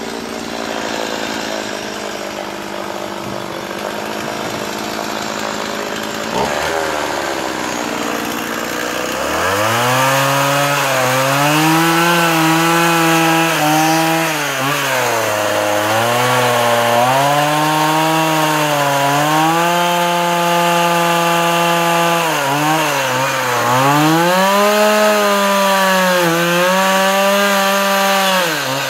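Stihl MS 170 two-stroke chainsaw cutting into a wooden post. It is quieter and rougher for about the first nine seconds, then runs at high revs, its pitch sagging and recovering again and again as the chain bites into the wood and is eased off.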